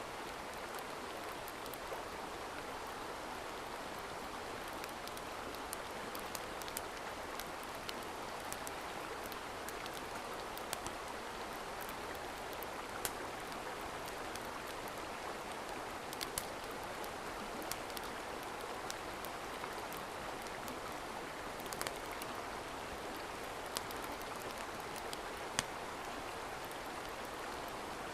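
Steady rushing of a mountain stream, with scattered sharp crackles from a campfire.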